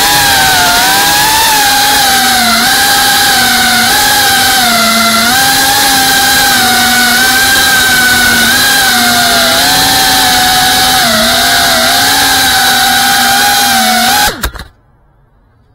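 FPV racing drone's electric motors and propellers whining as it flies, the pitch wavering up and down with the throttle. The sound stops abruptly near the end.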